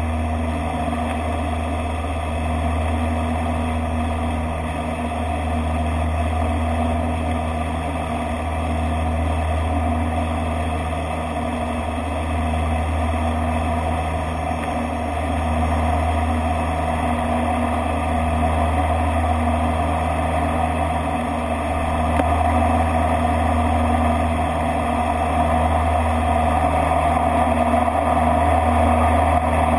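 Flight-deck noise of a Dash 8-Q200 in flight on approach: the deep, steady drone of its two Pratt & Whitney PW123 turboprops and four-bladed propellers, with a slow wavering beat as the two propellers drift in and out of step, over a steady hiss. It grows slightly louder in the last several seconds.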